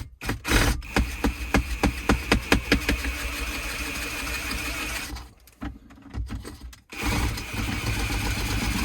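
Half-inch electric drill running in two bursts, its bit used sideways like a mill to widen a drilled hole. It knocks and chatters about three times a second early in the first burst, stops for about two seconds, then runs again.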